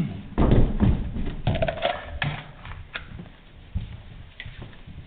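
Knocks, thuds and clothing rub picked up on a police officer's lapel-worn body camera as he moves, busiest in the first three seconds, then quieter.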